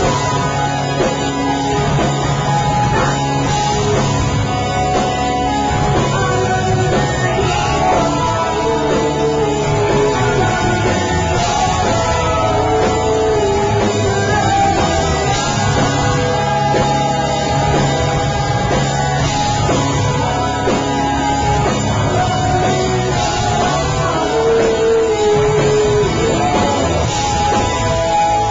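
Rock band playing live, loud and dense, heard through a pocket camcorder's built-in microphone.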